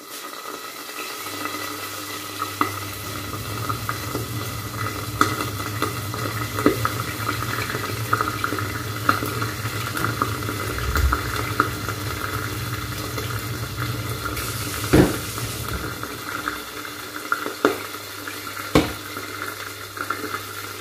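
White cabbage wedges dipped in egg frying in a covered pan, sizzling steadily with fine crackles. A low steady hum runs underneath, and a few knocks come in the last few seconds.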